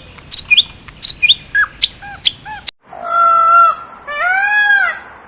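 A bird chirping in a quick string of short, high, falling notes; after an abrupt cut, an animal gives two long calls that rise and fall in pitch.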